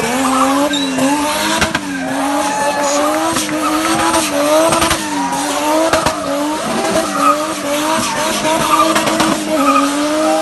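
A Nissan Skyline R33 with a 1JZ straight-six engine drifting: the engine's revs rise and fall over and over as it is worked on the throttle, over a continuous tyre squeal and skid.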